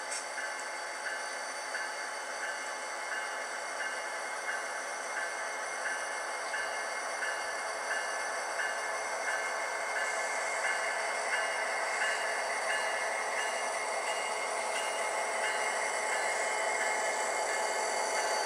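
Model train running on a layout: a steady mechanical hum with a faint regular tick about one and a half times a second, slowly getting louder.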